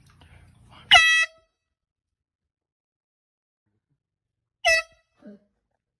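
Air horn blasted twice: a loud blast of about half a second about a second in, then a shorter one nearly four seconds later.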